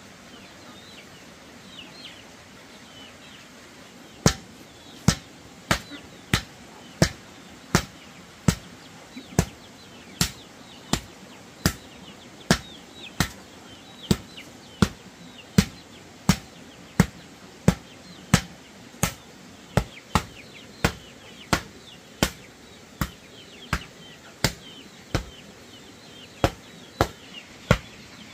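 Steady, evenly paced blows of a hand tool striking wood or bamboo, about four every three seconds, starting about four seconds in. Faint chirping comes before the blows start.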